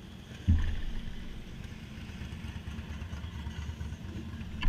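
Wind buffeting the microphone: a sudden low rumble about half a second in that fades over a second or so, and another at the end.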